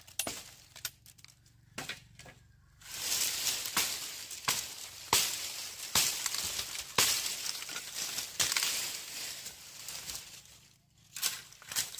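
Dense crackling rustle full of sharp snaps, from about three seconds in until near ten seconds, with scattered single clicks before and after.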